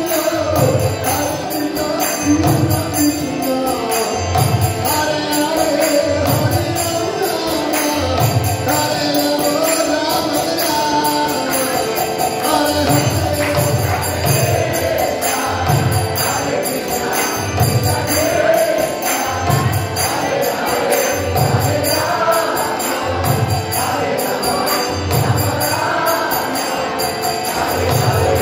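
Kirtan music in a DJ style: voices chanting a devotional song over jingling hand cymbals and a deep, regular bass beat.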